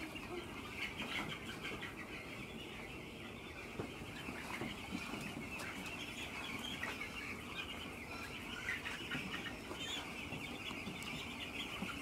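A large flock of young chicks peeping without a break, a dense chorus of high chirps from thousands of birds in a brooding shed.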